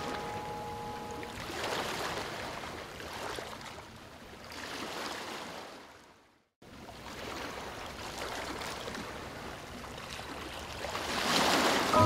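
Waterfall: an even rush of falling water that swells and eases, cutting out completely for about half a second near the middle.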